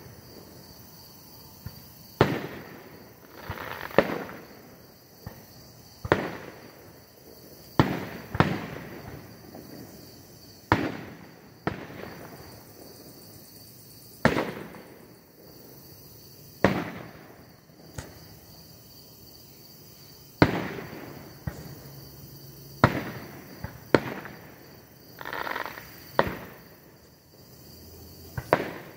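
Aerial firework shells bursting overhead: sharp booms every second or two, each trailing off in a rolling echo.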